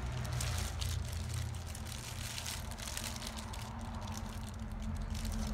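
Plastic food-prep glove crinkling and wet squishing as a hand presses pounded shallot, pepper and chili paste from a stone mortar into a split fish. A steady low hum runs underneath.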